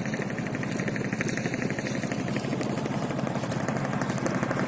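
A small boat engine running steadily, with a fast even chugging.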